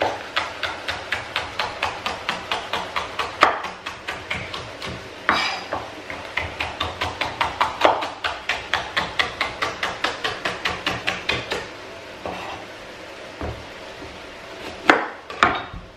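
Kitchen knife chopping red pepper into thin strips on a wooden chopping board: long runs of quick, even knocks, about four a second, broken by pauses and a few heavier chops, with two sharp chops near the end.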